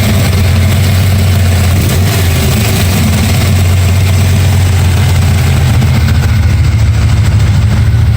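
Vehicle engine idling steadily, with a ticking noise in its running.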